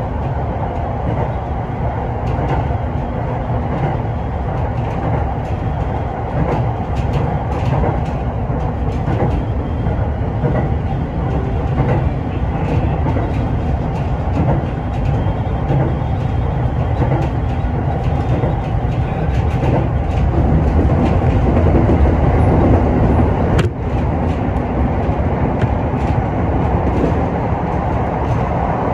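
Sotetsu commuter electric train running along the Izumino Line, heard from the front car: a steady rumble of wheels on rail with scattered clicks. It grows slightly louder, then a sharp click near the end, after which the level drops a little.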